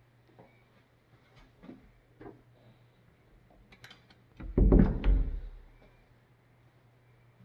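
An interior door's lever handle turned, its latch clicking, then a loud low bump in two pulses as the door is pulled open.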